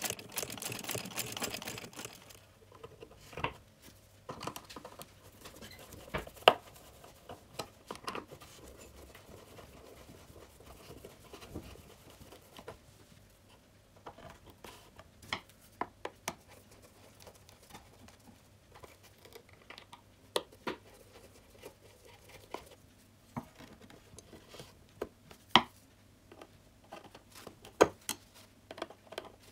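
A sewing machine stitching rapidly for about two seconds, then stopping. After it come scattered knocks, clicks and rustles as gloved hands fit parts into a wooden case and work with a screwdriver.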